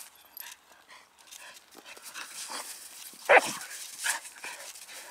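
Wolfspitz (keeshond) dogs at rough play, with faint scuffling and small sounds and one sharp, loud bark about three seconds in, then a smaller sound about a second later.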